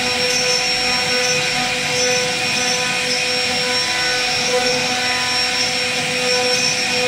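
CNC router spindle whining steadily on several held tones as its bit carves a relief pattern into a wooden door panel, with the hiss of the cutter through the wood beneath.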